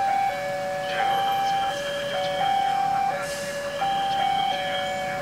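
Railway level-crossing warning alarm sounding as a train approaches: two electronic tones alternating high and low, each held for under a second, over and over.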